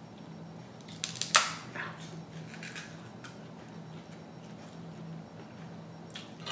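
King crab leg shell being snapped and cracked open by hand: a few sharp cracks about a second in, the loudest among them, then smaller crackles, and another short run of cracks near the end.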